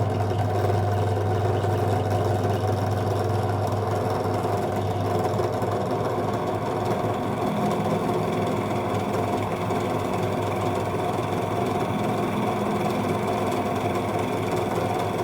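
ZJ4113 bench drill press motor running steadily with an even hum while its titanium-coated bit drills a hole through a metal bicycle pedal crank arm.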